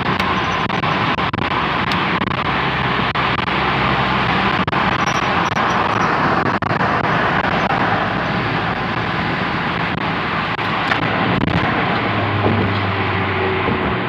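Audi A4 B7 on the move: steady road and tyre noise, with a low hum coming up near the end.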